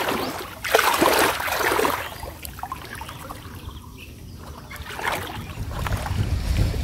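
Shallow water splashing and trickling as a cast net is hauled in and gathered by hand, loudest about a second in, with a smaller splash about five seconds in.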